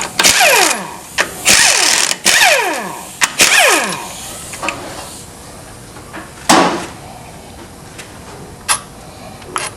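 Power driver spinning out the valve body bolts in four short bursts, each winding down in pitch as the trigger is let go. A few sharp metallic clinks follow later.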